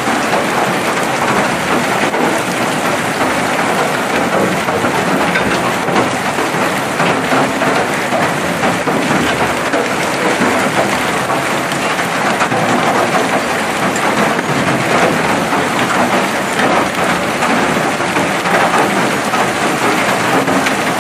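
Heavy hailstorm without rain: hailstones pelting the ground in a steady, dense clatter of countless small hits.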